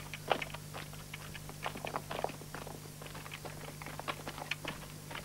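Footsteps of two people crunching on gravel, brisk and irregular, with a faint steady low hum underneath.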